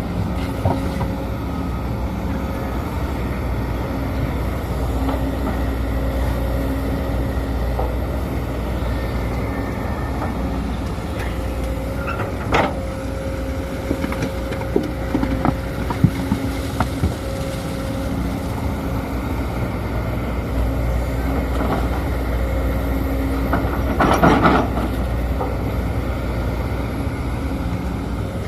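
Sumitomo SH210 hydraulic excavator working in mud: its diesel engine drones steadily under load with a tone that swells and fades, broken by occasional sharp knocks and a louder rattling stretch near the end.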